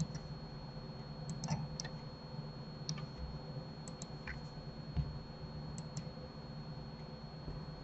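Computer mouse clicks: about ten short, sharp clicks at irregular intervals, some in quick pairs, over a steady low hum and a faint high whine.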